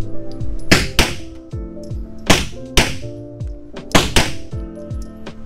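Beretta M9 pistol fired six times, in three quick pairs, each shot sharp and echoing in an indoor range, over background music.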